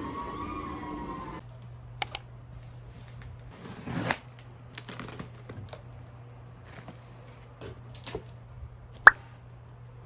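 Scattered small clicks, taps and rustling of objects being handled over a steady low hum, with one sharp click near the end.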